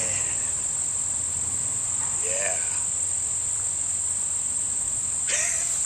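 Crickets trilling steadily in a high-pitched, unbroken chorus. Two short bits of a man's voice come through, about two and five seconds in.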